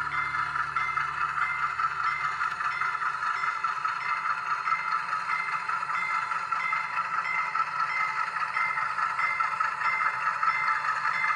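HO-scale model freight cars rolling slowly along the track, a steady rattle and scrape of small wheels on rails, with a high tick repeating about twice a second.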